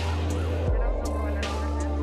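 Background electronic music: a deep bass that slides down in pitch about two-thirds of a second in, held chord tones, and crisp percussion hits in a steady beat.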